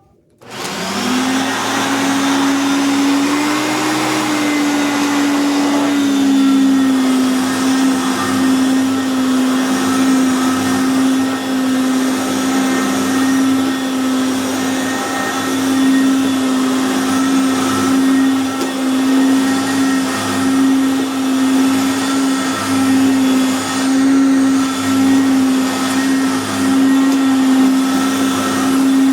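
A 1990 Hoover Concept One upright vacuum's 7-amp Power Surge motor is switched on about half a second in and spins up within a second. Its pitch rises slightly and then settles after about six seconds. From then on it runs with a loud, steady hum.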